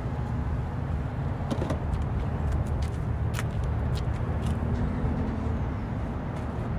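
A steady low outdoor rumble, with a few light clicks and knocks between about a second and a half and four and a half seconds in as things are handled in an open car trunk.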